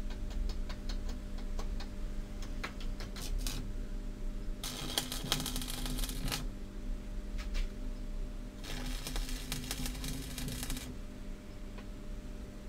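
Stick (arc) welding on steel: the electrode arcing in two bursts of dense crackling sizzle, each about two seconds long, about five seconds in and again near nine seconds. Before the first burst, a run of light scattered ticks and taps.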